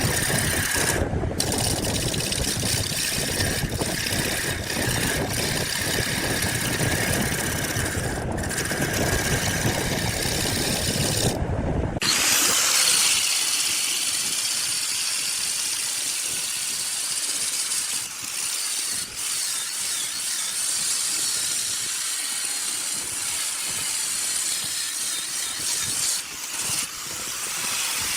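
Woodworking power tools running with a steady noise. About twelve seconds in the low, heavy part drops away, leaving a high hiss.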